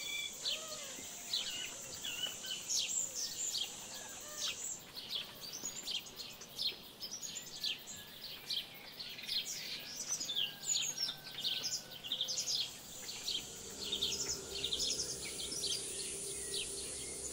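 Many birds chirping and singing in quick short calls throughout, over a steady high buzz. A low steady hum comes in near the end.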